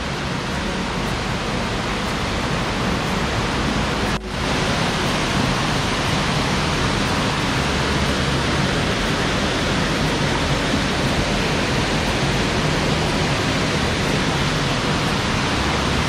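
Loud, steady rush of water cascading over rocks in a waterfall, with a brief dip about four seconds in.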